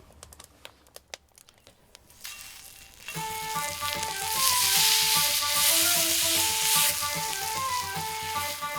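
Food sizzling in a frying pan over a wood fire. After a quiet start with a few faint clicks, the sizzle starts about two seconds in and is loudest in the middle. Background music with a simple melody comes in about three seconds in.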